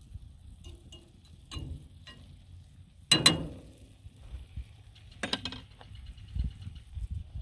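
A cast iron skillet clanks down onto the metal grill grate about three seconds in, ringing briefly, followed by a second, quieter metallic clank about two seconds later.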